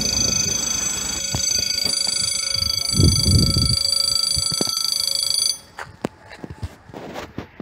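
Level crossing warning bell ringing steadily, a loud electronic ring of several high tones, while the barriers lower. It cuts off suddenly about five and a half seconds in, as the barriers come down. A short low rush of noise comes about three seconds in.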